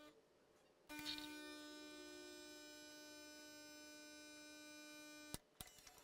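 Gaggia Babila espresso machine's pump running while it pulls an espresso shot: a faint, steady buzzing hum that starts about a second in, after a short pause for pre-infusion, and cuts off sharply near the end.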